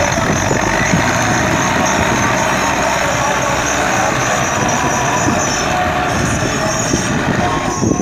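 Belarus 510 tractor's diesel engine running steadily under load as it drags a tillage implement through deep, flooded mud.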